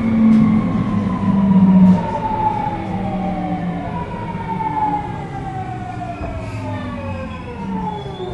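Tokyu 2000 series train's VVVF inverter traction motors whining, several tones falling steadily together in pitch as the train slows under braking, over the low rumble of the running train.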